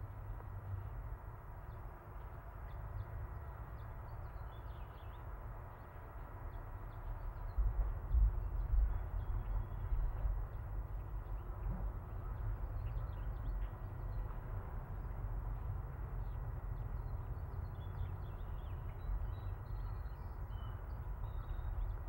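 Birds chirping faintly and intermittently over a steady low rumble on the microphone, which swells briefly about eight seconds in.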